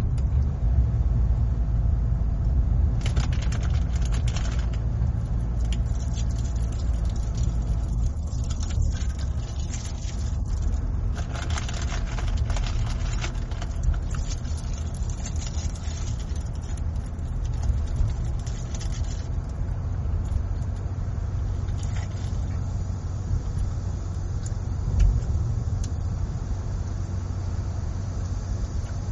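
Car driving on a paved road: a steady low rumble of road and engine noise, with tyre hiss that swells and fades a few times.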